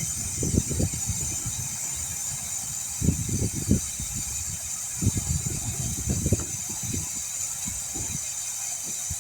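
Steady hiss of air escaping from a deflating car tire through its valve stem, with several clusters of low bumps and scuffs from handling the wheel and tools.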